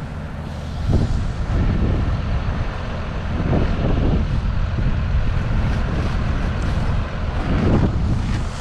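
Wind rumbling and buffeting on the microphone over the steady low running of a tractor engine.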